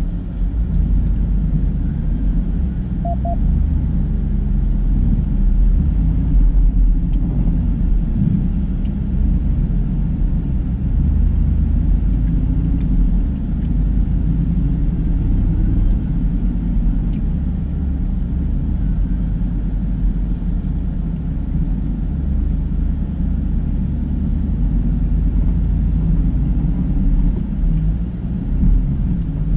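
Steady low rumble of a 2019 Ram Power Wagon's 6.4-litre HEMI V8 and tyres driving along a dirt jeep trail.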